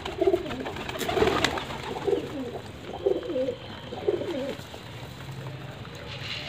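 Domestic pigeons cooing: a run of low, bending coos about once a second, fading out after about four and a half seconds.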